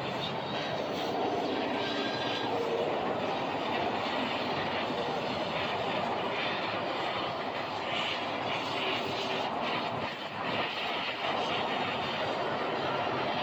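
A steady rushing, engine-like noise, with a short dip about ten seconds in.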